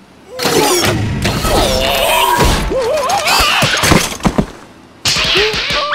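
Cartoon larvae squealing and jabbering in wobbling, high voices over the clatter and thuds of a toy robot falling apart. There are sharp knocks around the middle and just after four seconds, and the commotion breaks off briefly before starting again suddenly near the end.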